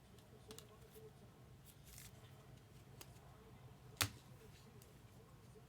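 Quiet handling sounds of trading cards and their wrappers: a few soft clicks and short rasps, with one sharp click about four seconds in.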